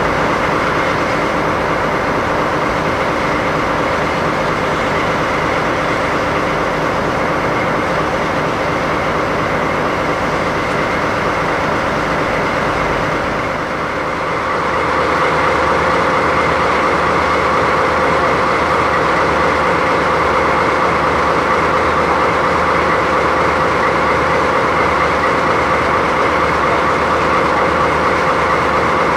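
DD51 diesel-hydraulic locomotive's twin V12 diesel engines idling with a loud, steady drone. About halfway through, the sound shifts a little in tone.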